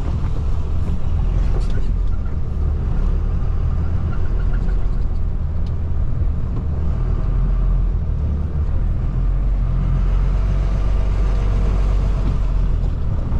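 Cargo truck driving slowly, heard from inside its cab: a steady low engine drone with road noise.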